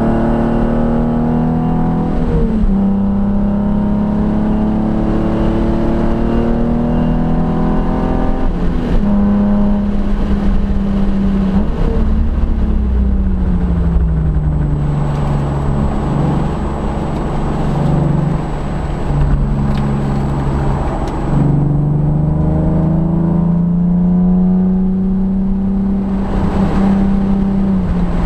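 A 2004 Nissan 350Z's VQ35DE V6 with aftermarket headers and HKS exhaust, heard from inside the cabin, pulling hard on track. Its pitch climbs through the gears, with upshifts about two and nine seconds in. About twelve seconds in it lifts off and the pitch falls, running low under a rushing noise while the car slows for a corner, then climbs again under power from about twenty-one seconds in.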